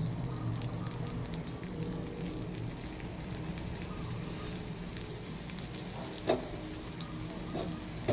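Beaten egg with chopped garlic chives frying in hot oil in an aluminium wok: a steady sizzle with fine crackles. A brief louder click comes about six seconds in.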